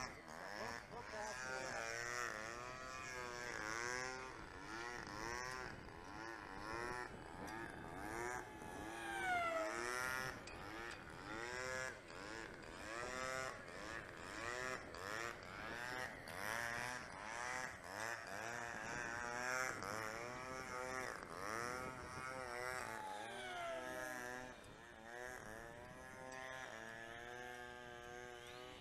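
Electric RC model of the Rare Bear racer on a 6S battery, its motor and propeller whining in a pitch that swoops up and down about once a second as it flies fast. Twice, about ten seconds in and again past twenty seconds, the pitch slides down in a long fall as the plane goes by.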